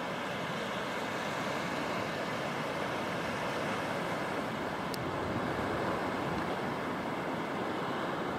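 Steady wash of small waves breaking on a shallow, flat sandy beach.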